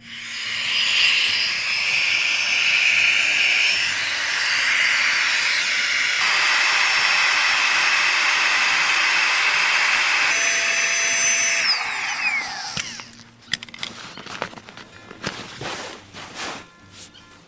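A small electric motor running steadily for about twelve seconds, its tone shifting twice, then winding down with a falling whine; a few clicks and knocks follow.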